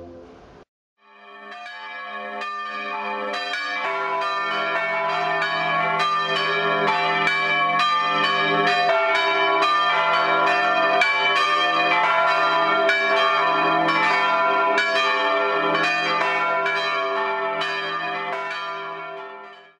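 Church bells ringing together, the strikes coming in an even run of about two a second; they swell in about a second in and fade out near the end.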